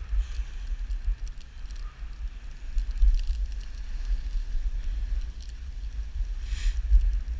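Dog sled running along a snow trail behind a team of sled dogs, with the camera riding on the sled: a steady low rumble of wind and sled movement on the microphone, light scattered crackles of the sled on the snow, and a brief hiss near the end.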